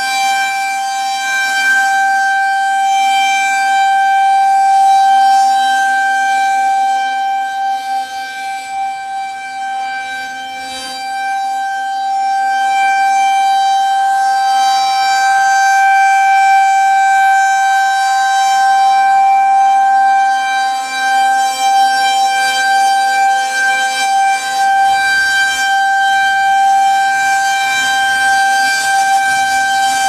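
Federal Signal 2001-130 rotating electromechanical siren sounding a steady tone at constant pitch during a test. The tone swells and fades slowly as the horn turns toward and away, dipping most about a third of the way in.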